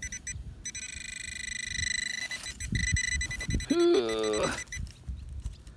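Metal detecting pinpointer probe pushed into a clod of earth: a few quick high beeps, then a steady high pulsing tone for about two seconds as it sits over the target in the clod. Around four seconds in, a short rising animal call sounds, the loudest thing here.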